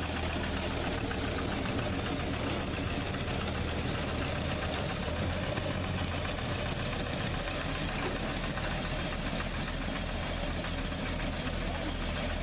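Small internal-combustion engine of a miniature-railway 'Auto Truck' locomotive running with a steady rapid beat as it pulls away with its little coach.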